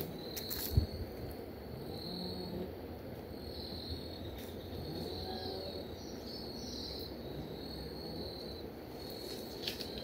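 Insects chirping in a high, thin band that comes and goes in short phrases over a low outdoor hum. There are a few sharp clicks in the first second as the rod is cast.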